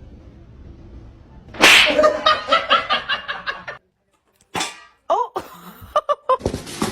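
A loud sharp smack, followed by a quick run of short pitched bursts at about five a second. After a brief silence come several short vocal sounds that bend in pitch.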